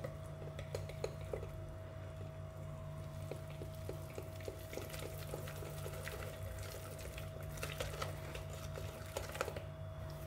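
Wire hand whisk beating a thick flour-and-milk yeast batter in a glass bowl: a wet stirring sound with quick light clicks of the wires against the glass, several a second. The flour is being whisked in to develop the gluten.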